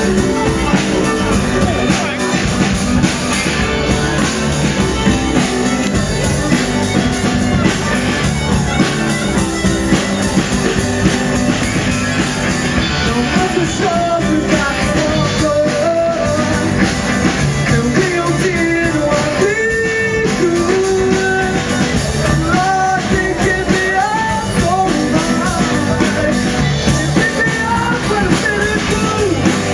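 Live rock band playing at full volume: electric guitar, bass guitar, drums and fiddle, with a harmonica played into the vocal microphone carrying a wavering melody through the second half.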